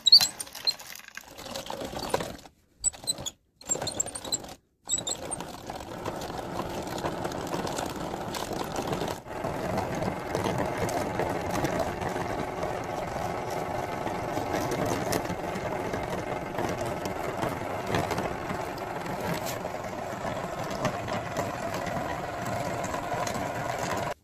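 Meat grinder running, its auger grinding chicken feet and pushing the mince out through the cutting plate: a steady mechanical churning. It cuts in and out a few times in the first five seconds, then runs steadily.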